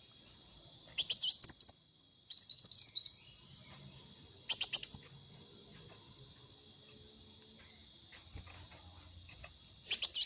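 Sunbird song: four short bursts of rapid, high chittering notes, about a second apart at first and then a longer gap before the last, over a steady high-pitched drone.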